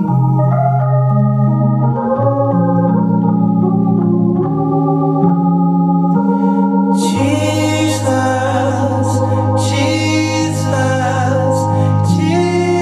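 Organ playing sustained chords that change every second or so, the tone turning much brighter about seven seconds in.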